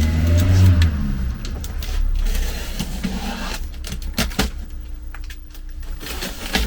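A cardboard shipping box being handled and opened. There is a rumbling, sliding scrape at first, then a series of short knocks and rustles from the box and its packaging.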